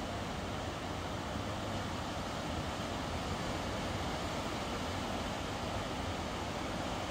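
Steady, even roar of a river in flood, its whitewater rushing and churning.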